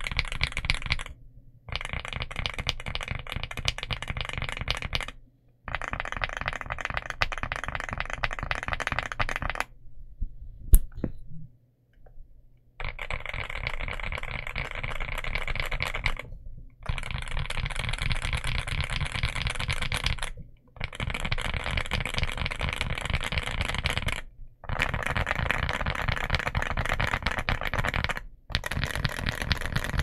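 Fast typing on a Rainy75 mechanical keyboard with Akko Dracula linear switches, a polycarbonate plate and dye-sub PBT Cherry-profile keycaps. It is a dense clatter of keystrokes in runs of a few seconds, with brief pauses between them, and one sharp single click in a longer pause near the middle.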